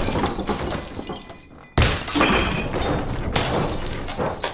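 Glass wine bottles smashing as a loaded wooden wine rack comes down. A crash dies away, then a sudden crash of breaking glass comes almost two seconds in, with more hits a little later.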